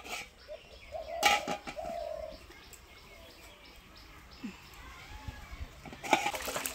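Aluminium cooking pot and lid clanking and clattering as the pot is handled on a clay wood-fired stove, lifted off and set down. There is a sharp clank about a second in and more clatter near the end.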